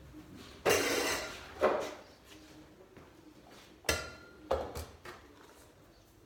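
Two short scraping clatters, then a sharp knock and a pair of lighter knocks, as of objects being handled.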